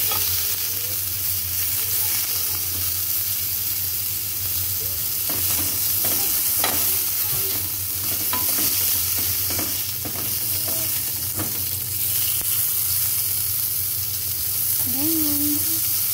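Sausages sizzling steadily in a hot ridged grill pan. A metal spatula clicks and scrapes against the pan now and then as they are turned.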